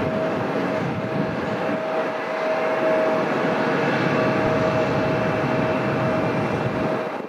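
Boeing 757-200 freighter's Pratt & Whitney PW2037 turbofan engines running at takeoff power: a loud, steady jet roar with a steady whining tone through it, easing off a little near the end.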